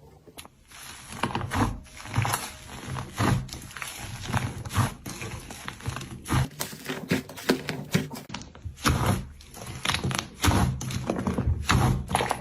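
Slime being squished and pressed, making many irregular sticky clicks and pops over soft low thuds, with a denser run of clicks about halfway through.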